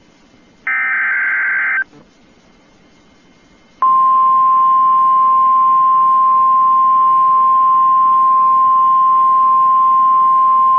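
Emergency Alert System activation: the last of three SAME header data bursts, a harsh digital buzz about a second long, then after a pause of about two seconds the single steady attention tone of the weather warning begins and holds unbroken.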